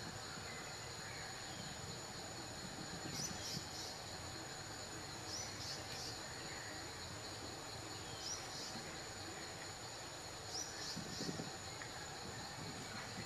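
Outdoor insect drone: a steady high-pitched buzzing. Over it, a short high chirping call repeats about every two and a half seconds.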